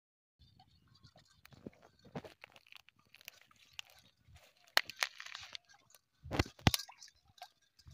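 A hooked fish thrashing at the water's surface: a string of irregular splashes and crackles. The loudest come about five seconds in and again between six and seven seconds.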